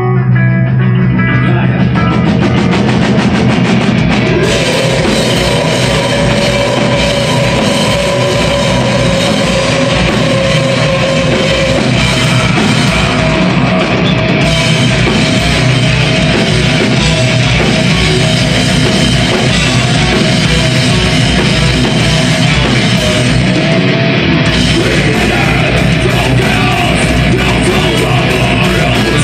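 Melodic death metal band playing live: distorted electric guitars, bass and drums, with vocals. The song starts right at the beginning, and cymbals come in about four seconds in.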